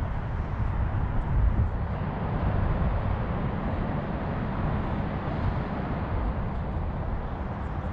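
Wind buffeting the microphone: a steady low rumbling rush that swells a little about a second and a half in.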